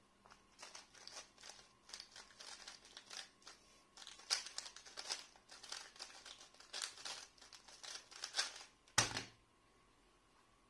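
A 3x3 speed cube being turned fast by hand: rapid flurries of plastic clicking and clacking for about eight and a half seconds, ending as the solve finishes with one loud thump about nine seconds in.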